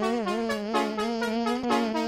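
Cartoon background music: a jazzy horn-like melody with wavering notes over a steady held low note.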